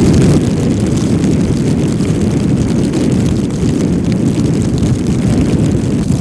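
Strong wind blowing and buffeting the microphone: a loud, steady low rumble with a faint hiss above it.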